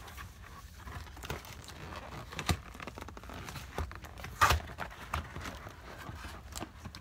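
Cardboard box and packing tape being handled and pulled at: scattered crinkling, scraping and knocks, with one louder knock about four and a half seconds in.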